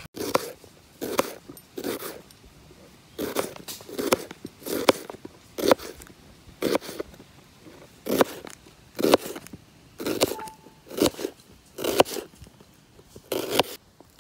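A knife slicing through a small red onion on a plastic chopping board: a crisp crunch with a tap on the board at each cut, about one cut a second, about fifteen in all, stopping near the end.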